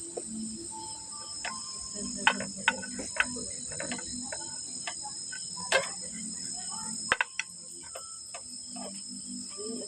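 Steady high-pitched insect chorus, with scattered sharp clicks and taps from eating a meal.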